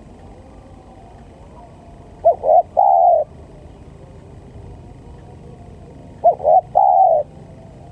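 Spotted dove cooing twice, about four seconds apart: each phrase is two short coos followed by a longer, drawn-out coo.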